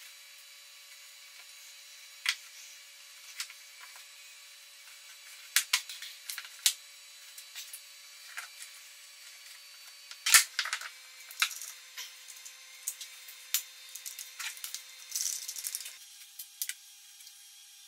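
Small plywood blocks clacking and knocking against each other and on a wooden workbench as they are picked up, set down and stacked. Irregular sharp knocks, with a cluster of the loudest about 10 s in.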